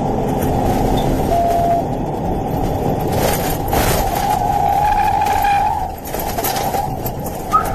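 Steady engine and road noise inside a patrol car driving fast in a pursuit, with a short electronic beep about a second and a half in.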